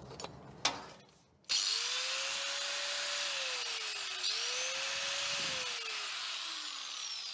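Skil angle grinder switched on about a second and a half in, its motor whining up to full speed on freshly replaced carbon brushes. The whine dips once about four seconds in and climbs again, then falls as the grinder winds down near the end. A couple of clicks come first as the plug goes into the socket.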